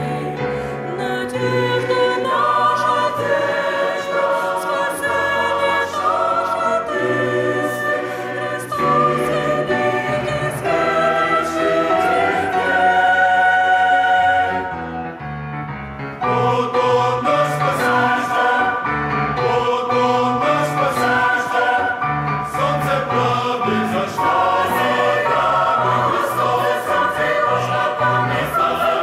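Large mixed youth choir singing a Christian hymn in Russian, in parts, with held chords. The sound briefly drops in volume about halfway through before the full choir comes back in.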